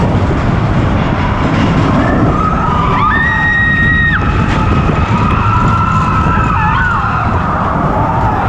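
Riders on the Expedition Everest roller coaster screaming over the loud, steady rush of the coaster train and the wind. There are several long, held high screams; the clearest comes about three seconds in and lasts about a second.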